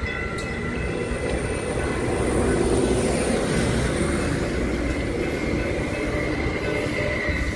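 TEXRail Stadler FLIRT diesel multiple-unit train passing close by, a steady rumble of wheels and engine that swells slightly two to three seconds in.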